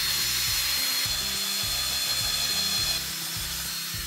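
Ryobi cordless drill with a 1/4-inch bit spinning as it bores a hole through extruded foam board and the tabletop beneath, with a steady high motor whine. The sound eases a little about three seconds in and stops near the end.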